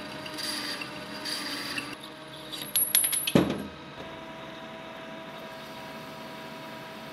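Metal lathe turning brass stock with the cutting tool working the spinning piece. Near the middle comes a quick run of sharp metallic clicks, then the lathe runs on with a steady hum and a held tone.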